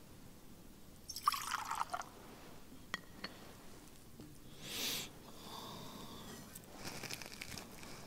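Wine poured from a glass cruet into a chalice: a short trickle about a second in and another near the end, with two light clinks of glass around three seconds in and a soft rush of breath in between.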